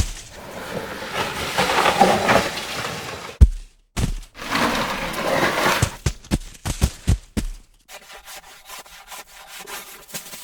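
Snow sound effects in sequence: a thud, then about three seconds of snow being crushed or pushed, a second thud, another long crunching stretch, then a quick run of sharp snow hits. Near the end comes a fainter, steadier crunching texture.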